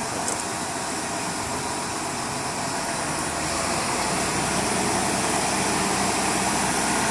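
Heavy vehicle engine running steadily, growing a little louder and deeper about halfway through.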